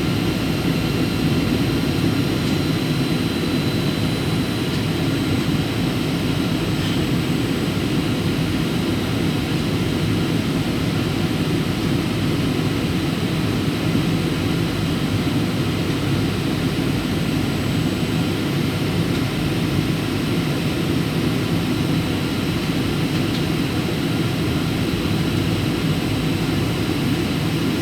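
Steady cabin noise inside a Boeing 737 airliner in flight: the even, low-pitched sound of the jet engines and the air rushing past the fuselage, unchanging throughout.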